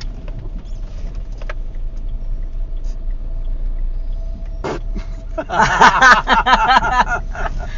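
Steady low road and engine rumble inside a moving car's cabin. About five and a half seconds in, a voice speaks loudly over it.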